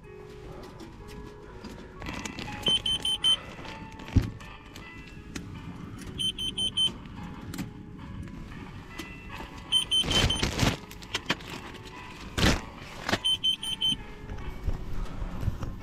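Groups of four quick high-pitched electronic beeps repeating about every three and a half seconds, with scattered clicks and two short loud rustling rushes around ten and twelve seconds in.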